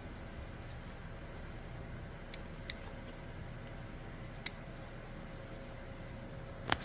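A few sharp, light clicks of the plastic fuel filter housing lid being handled in gloved hands as its rubber seal is worked back on, the last one the loudest, over a faint steady hum.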